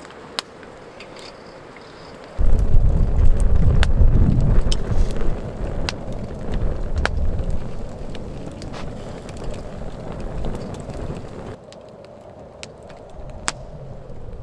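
Wood fire crackling in a metal fire bowl, with scattered sharp pops. A loud low rumble comes in suddenly about two seconds in and dies away before the end.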